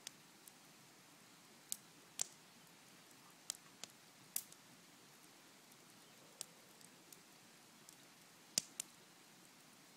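Campfire wood crackling: about a dozen sharp, irregular pops over a faint steady hiss, the loudest a little past eight and a half seconds in.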